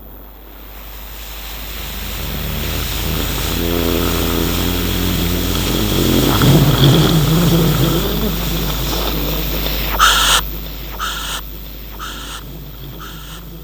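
Ghost sound effect: a hissing, airy swell that builds over several seconds with a low moaning tone in the middle. About ten seconds in, a short sharp sound echoes away in fading repeats about a second apart.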